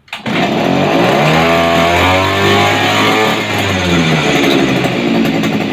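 Small petrol kayak outboard motor firing up on a pull of the starter cord and running, revving up and down with its propeller spinning in the air out of water.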